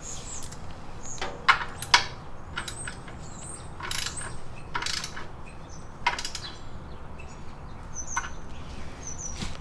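Hand tools working on the oil drain plug: scattered sharp metallic clicks and short scrapes, with socket-ratchet clicking among them.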